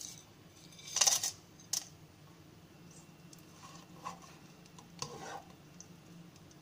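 Whole spices (bay leaves, cinnamon sticks, cardamom, cloves and peppercorns) tipped from a plate into oil in a nonstick pan, with a brief loud clatter about a second in and a sharp click right after. A plastic spatula then stirs them, with a few soft scrapes and knocks against the pan.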